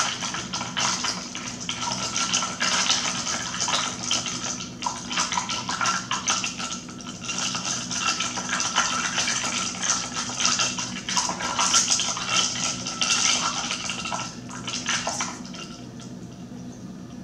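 A straw stirring powdered drink mix into a glass of water: rapid clinks and taps of the straw against the glass over swishing liquid, stopping about fifteen seconds in.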